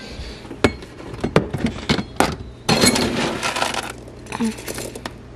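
A scoop of dry pet kibble being served: several sharp clicks and clinks of the scoop and bowl, then a rattling pour lasting about a second as the kibble falls into the bowl, with a few lighter clinks after.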